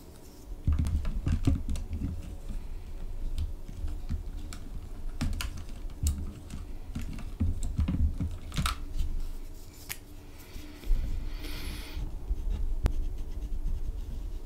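Hands rummaging among plastic gel pens in a clear plastic case: scattered sharp clicks and rattles of plastic on plastic, with dull handling thumps. About eleven seconds in comes a scratchy rustle lasting about a second.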